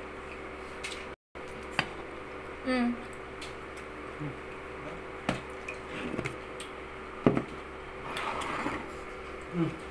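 Eating sounds from peeling and chewing crab and shrimp: squishy, wet shell-cracking and rustling, with several sharp clicks of plates and utensils, the loudest about seven seconds in. A short hummed voice sound comes near the three-second mark, over a steady low hum.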